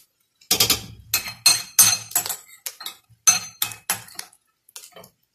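Metal clattering against a stainless steel cooking pot: a quick series of sharp knocks and clinks with a ringing metallic tone, starting about half a second in and dying away after about four seconds.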